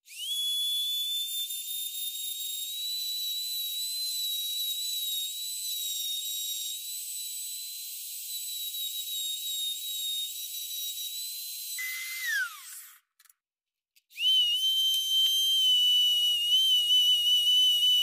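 Handheld rotary tool with a felt polishing bob running at high speed, a thin, high, steady whine, polishing the copper contacts of a car ignition switch. About twelve seconds in the motor falls in pitch as it spins down. After a second's pause it starts up again and settles back into the whine.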